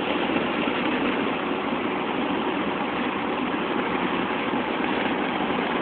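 Steady road, wind and engine noise of a car driving along, heard from inside the cabin.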